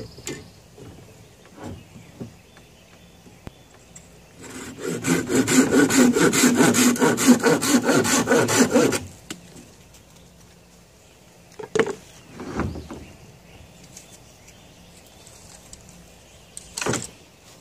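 Hand saw cutting through a green bamboo pole in quick back-and-forth strokes for about four and a half seconds, stopping once the cut is through. A few short knocks follow later as the pole is handled.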